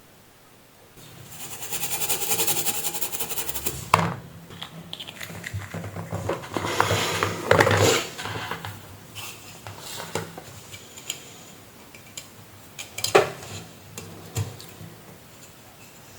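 Small metal tools and parts being handled on a workbench: a rapid scraping rattle for about two seconds, then scattered sharp clicks and clinks, the sharpest about 4 and 13 seconds in.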